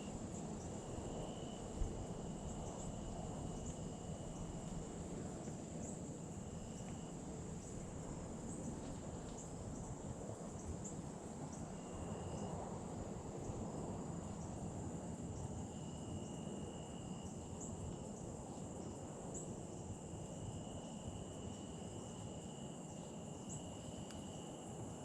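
Insects trilling steadily outdoors. One high continuous trill runs throughout, and a lower trill starts and stops in stretches. There is a single sharp knock about two seconds in.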